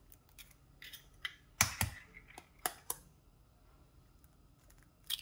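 An egg being cracked and broken open into a bowl: small shell cracks and clicks, with one louder knock a little under two seconds in.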